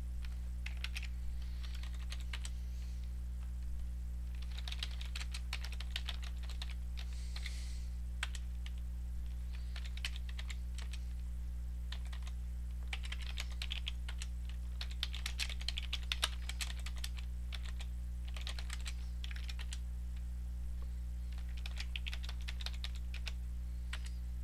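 Typing on a computer keyboard in several short bursts of keystrokes with pauses between them, over a steady low hum.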